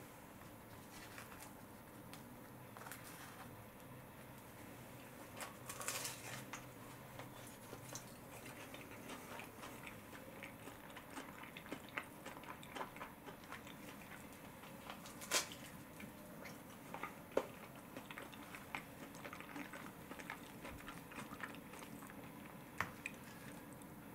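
Crisp toasted sandwich crusts being torn open by hand: soft crackling and crunching of the toasted bread, with a few sharper cracks scattered through.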